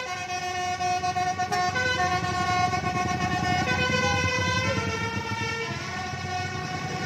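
A bus's 'telolet' musical air horn playing a tune of held notes that step to a new pitch every second or two, over the low rumble of the bus's engine running.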